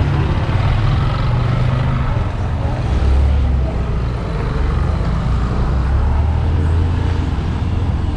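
Street traffic: a motor vehicle's engine running close by, a low steady hum that grows stronger a few seconds in, over the general noise of a town street.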